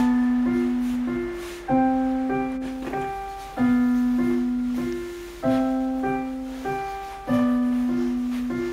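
Solo piano background music, slow and gentle: a low note struck about every two seconds, with lighter higher notes in between, each ringing out and fading.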